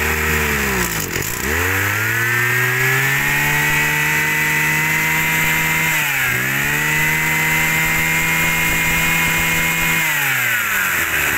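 Mitsubishi TL43 brush cutter's two-stroke engine running. It sags about a second in, is throttled up to a high steady speed, dips briefly about halfway through and picks up again, then drops back toward idle near the end.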